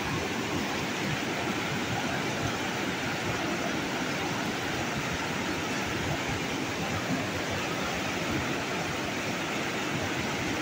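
Steady rush of a fast mountain river, whitewater rapids pouring over and around boulders.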